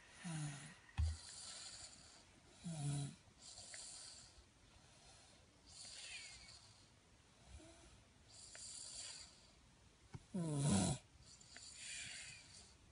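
A man snoring: three deep, voiced snores that fall in pitch, the longest about ten seconds in, with hissing, airy breaths between them. There is one short low thump about a second in.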